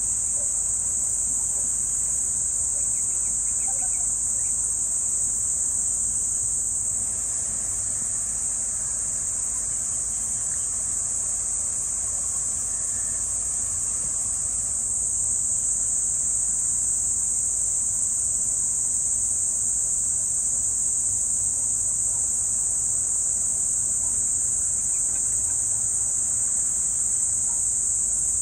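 A steady, high-pitched chorus of insects, shrill and unbroken. It dips slightly for several seconds in the middle.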